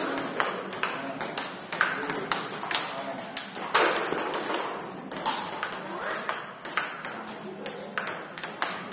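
Table tennis multiball drill: a steady rapid run of celluloid-style ball clicks, ball on paddle and bouncing on the table, about two or three a second.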